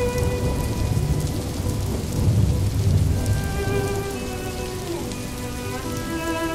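Steady rain ambience with low rumbles of thunder, mixed with a slow, soft music track of long held notes.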